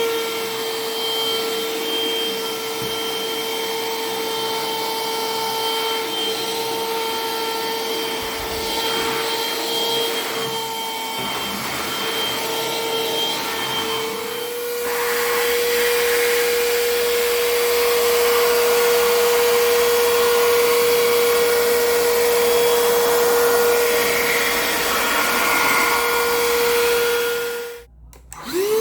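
Black+Decker BCHV001D1E 2-in-1 vacuum in handheld mode running steadily with a high motor whine and suction rush, its pitch stepping up slightly about halfway through. Near the end it cuts out and then starts winding back up.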